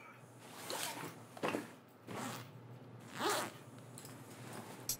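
Zipper on a fabric bag being pulled open in four short zips.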